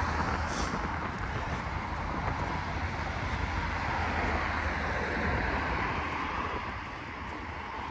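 Steady road traffic noise with a low rumble, easing slightly near the end.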